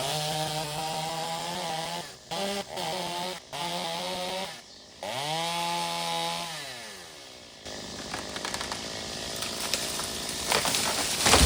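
Gas chainsaw running at a steady speed, its pitch swinging up and back down about halfway through. It then takes on a rougher, noisier sound as it cuts into a rotted tree trunk, with a burst of loud cracking near the end.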